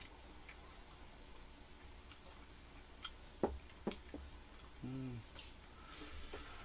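Quiet table-handling sounds: a few sharp clicks and taps about three and a half to four seconds in, a short hummed voice sound about five seconds in, and a brief crisp rustle near the end.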